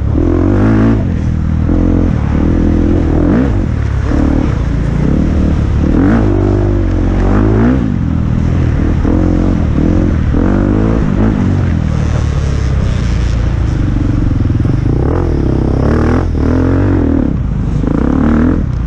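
Enduro dirt bike engine heard from an onboard camera at race pace, its revs rising and falling every second or two as the throttle is opened and shut through the muddy corners.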